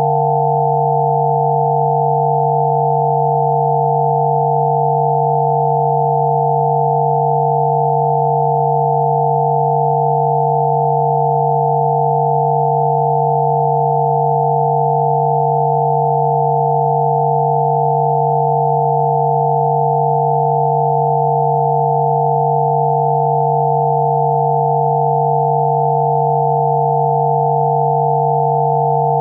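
Steady synthesized sine tones: a low tone and several higher ones sounding together, held unchanged at an even level.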